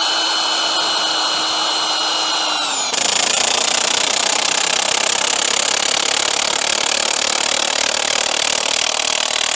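Milwaukee M18 Fuel 3/4-inch cordless impact wrench driving a 200 mm coach bolt into a tree stump. For the first few seconds the motor spins the bolt with a steady whine, its pitch sagging slightly as the load builds. About three seconds in, the hammer mechanism starts impacting and keeps hammering continuously as the bolt is driven down into the wood.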